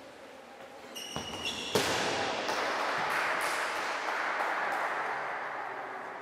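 A referee's whistle blows briefly about a second in and rises slightly in pitch. Then comes a sharp thud and a burst of crowd noise in the hall that slowly dies away over several seconds.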